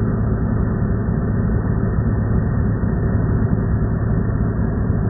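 Stihl chainsaw running at a steady speed, with an even low hum.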